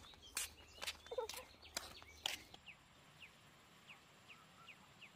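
Footsteps on a dirt road at a walking pace, with bird chirps. After a cut, a faint short downward chirp repeats about twice a second.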